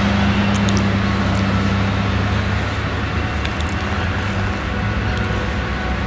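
Claas Jaguar 970 self-propelled forage harvester working, chopping maize with its Claas Orbis 750 header: a steady low engine and machinery drone, easing off slightly as it moves away.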